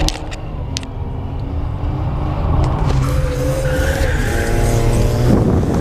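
BMW 325es straight-six running hard as the car slides sideways in a drift, heard from inside the cabin, with the rear tyres squealing in the second half; the squeal climbs in pitch and cuts off sharply near the end. The rear axle has a locked differential, so both rear wheels are made to spin and slide together.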